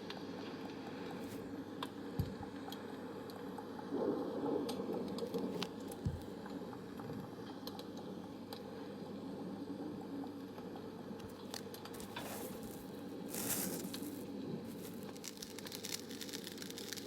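Close-up ASMR crinkling and light tapping, scattered clicks with a couple of soft thumps and a denser crinkly stretch near the end, over a steady low white-noise bed.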